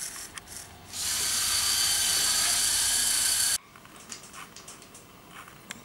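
Lepin M motor, a copy of the Lego Power Functions motor, running on the test bench as it pulls a weight on a string. It makes a steady high-pitched whir that cuts off abruptly about three and a half seconds in. A few faint clicks follow.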